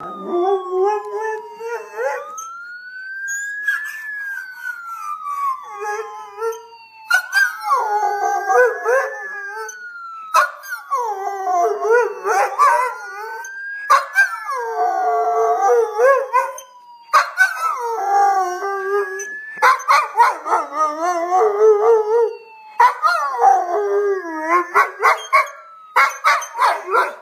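Schnauzer howling along with a wailing siren, in long wavering howls broken by short pauses. The siren rises quickly and falls slowly about every three seconds; the howling is the dog's reaction to it.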